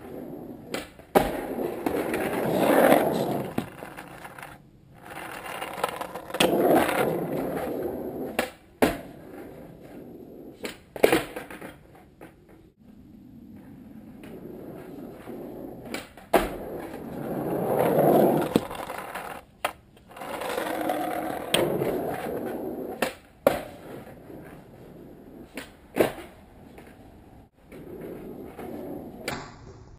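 Skateboard wheels rolling on an asphalt driveway in repeated runs that swell and fade, broken by sharp clacks of the board striking the pavement and the wooden box as tricks are tried.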